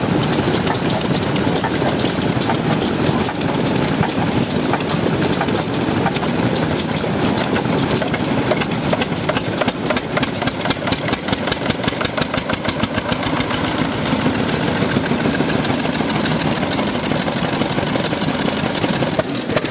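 Mitsubishi vertical diesel stationary engine running with a loud, rapid knocking beat that settles into an even rhythm about halfway through.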